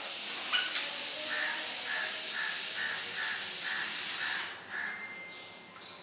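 A caged pet bird's long, harsh hissing call, laced with a quick run of short notes at about two to three a second, which cuts off suddenly about four and a half seconds in. A short, steady whistle follows near the end.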